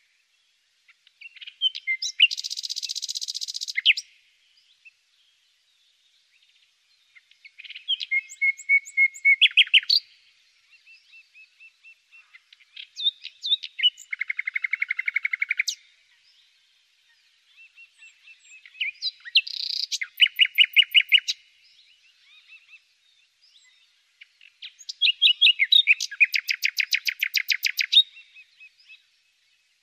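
A songbird singing five separate phrases, each two to four seconds long and built of fast trills and buzzy rolls, with short pauses between them.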